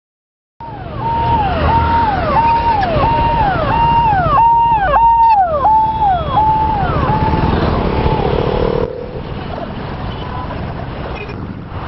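Siren-type hooter on a non-emergency road vehicle: a held tone that drops in pitch, repeating nearly twice a second over traffic and engine noise. It stops about eight seconds in, leaving the traffic and motorcycle engines.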